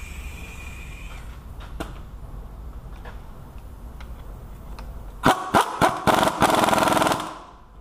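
Power tool on a long socket extension running a starter mounting bolt up into the engine block: four short trigger bursts, then a steady run of about a second with a fast, even pulse, stopping near the end. Light clicks of tool handling come before it.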